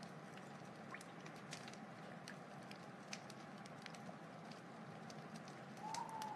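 Wood fire crackling: scattered sharp pops and ticks over a steady soft hiss, with a thin whistling tone coming in near the end.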